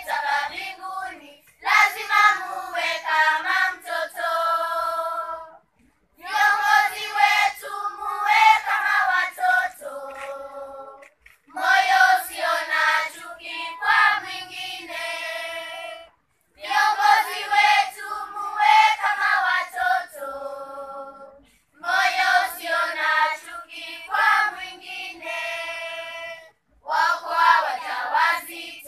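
Children's choir singing a song unaccompanied, in phrases of about five seconds with short pauses for breath between them.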